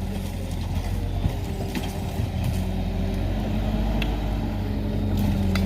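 Bulldozer's diesel engine running steadily, with a few sharp clicks and creaks from the machine working.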